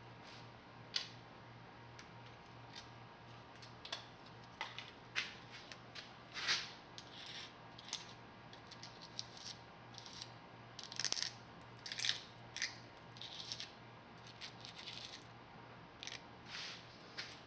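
Scattered small clicks, taps and light scrapes of tools and small containers being handled as a pinch of percussion-primer compound and black powder is scooped onto a metal vise for a test firing, over a low steady hum.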